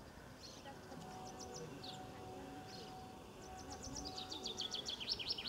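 Songbirds singing: scattered short high chirps, then from about three and a half seconds in a louder, rapid run of notes that falls in pitch toward the end.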